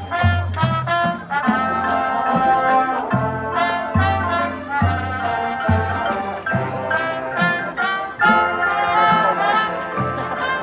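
Marching band playing, brass to the fore, with deep bass notes landing about once a second under held trumpet and trombone chords.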